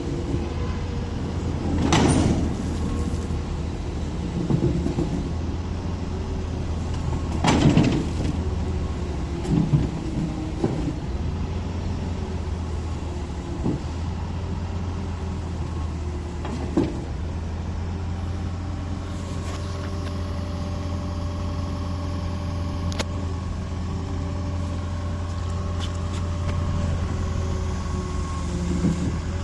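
Caterpillar 306 excavator's diesel engine running steadily with a steady whine over it, and several sharp knocks and clunks, the loudest about 2 and 7.5 seconds in.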